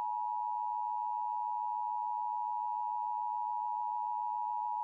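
Emergency alert attention tone: a single steady electronic tone, held without a break. It is the alarm signal that precedes a broadcast severe thunderstorm warning.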